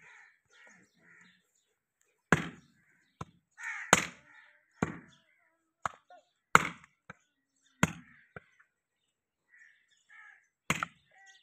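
A heavy meat cleaver chopping meat and bone on a wooden log chopping block: about ten irregular hard strikes, some with a lighter tap between them. Faint short bird calls sound in the gaps.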